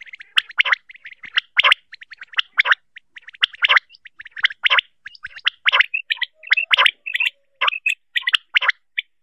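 Common quail (batair) calling: a rasping, rattling call repeats about once a second, with shorter clicking and chirping notes between.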